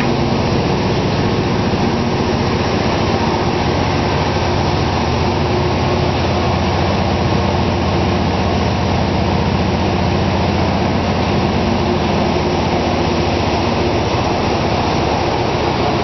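Engine room of the steam sternwheeler Natchez: the steam engines that drive the paddle wheel running, a steady loud machinery noise with a low hum and no let-up.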